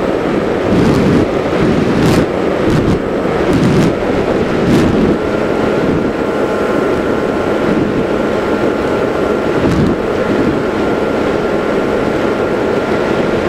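RC flying wing's motor and propeller heard through its onboard camera: a steady whine under heavy wind rush on the microphone, the pitch stepping up slightly about five seconds in.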